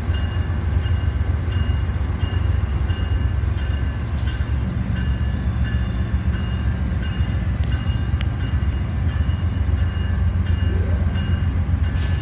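Passenger train's diesel locomotive rumbling steadily at close range, with a bell ringing at an even pace over it.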